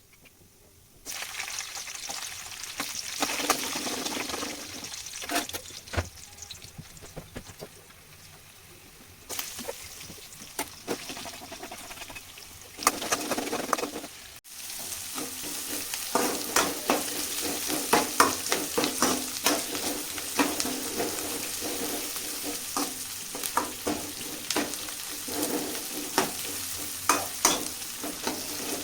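Ingredients sizzling in hot oil in a pan for tomato chutney, with a spatula scraping and tapping as they are stirred. The sizzle drops and rises abruptly twice along the way.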